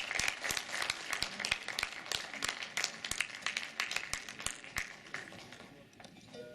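Audience applauding, the claps thinning out and dying away about five seconds in.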